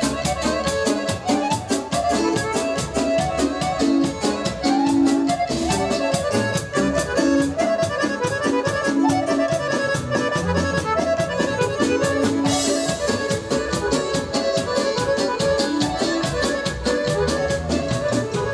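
Live band music led by an accordion playing the melody, over a steady drum-kit beat with keyboard accompaniment.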